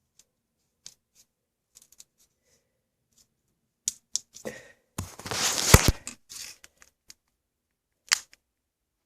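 Scattered clicks and small knocks of a BB-damaged phone's broken parts being handled and pressed back together, with a longer scraping rustle about five seconds in.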